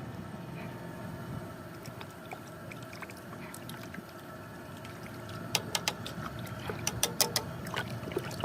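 Steady low background hum, then from about five and a half seconds a quick run of sharp clicks and light clatter from kitchen items being handled.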